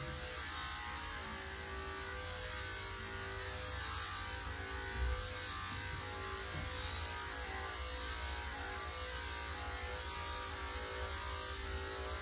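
Electric dog grooming clippers running steadily as they are worked through a cockapoo's coat, a continuous buzz with a low hum.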